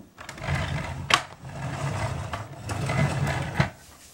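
Battery-powered toy Jeep running: a buzzing mechanical whirr with plastic rattle that dips briefly about a second in and stops near the end, with a sharp click twice.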